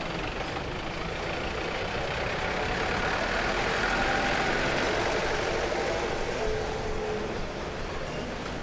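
Busy city street traffic, with a heavy vehicle passing: the rushing noise swells to its loudest about four seconds in, then eases off.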